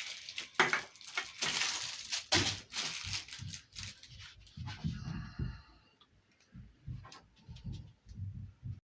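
Packaging being handled: crinkling and tearing with many small clicks, turning to quieter, duller knocks and bumps after about five seconds.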